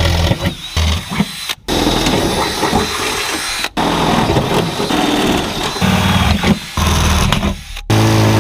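Ryobi 3/8-inch power drill boring holes through the truck's sheet-metal bed. It runs loud and steady in four stretches, with short stops about one and a half, three and a half and near eight seconds in.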